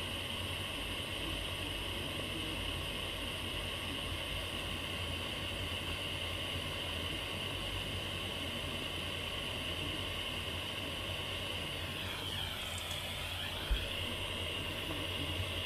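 Butane soldering iron hissing steadily as it heats a nickel tab and melts solder onto it; the hiss shifts in tone briefly about twelve seconds in, and there is one light knock near the end.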